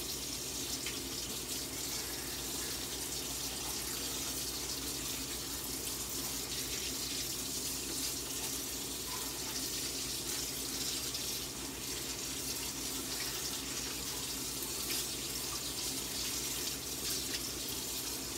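Kitchen faucet running steadily into the sink, a constant rushing hiss, as a plastic takeout-container lid is washed with soap under it.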